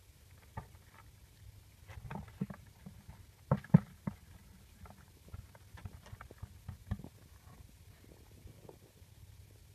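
Wire electric-fan-guard trap knocking and rattling against a plastic bucket as eels and small fish are shaken out of it into the bucket, with soft thuds as they drop in. Irregular knocks, loudest a pair about three and a half seconds in.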